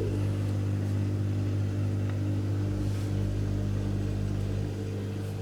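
Inventum built-in dishwasher running its wash programme: a steady, even hum of the circulation pump motor.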